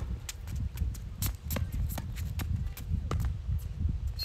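Tennis rally on a hard court: a series of sharp pops from racket strikes and ball bounces, with a steady low rumble underneath.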